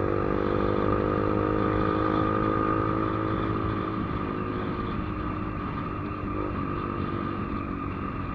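Motorcycle engine running at a steady highway speed of about 80 km/h, with wind and road noise on the mic. The engine note thins out a little about halfway through.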